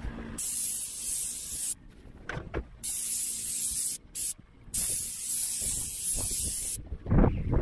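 Airless paint sprayer gun spraying undercoat onto a corrugated metal roof: a high hiss in three bursts of about one to two seconds each, starting and stopping cleanly as the trigger is pulled and released. A short low rumble near the end.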